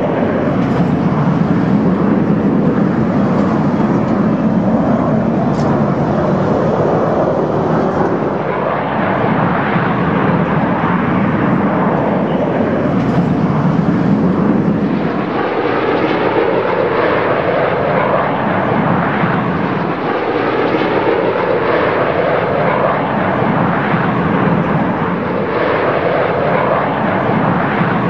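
Canadair CT-114 Tutor jets flying past in formation, their single turbojet engines giving a loud, steady jet noise. The tone sweeps slowly up and down in pitch as the aircraft move across the sky.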